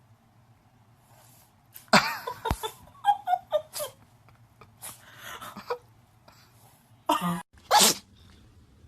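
A cat sneezing over and over in short, sharp bursts. There is one about two seconds in, a quick run of short sneezes after it, and two more near the end.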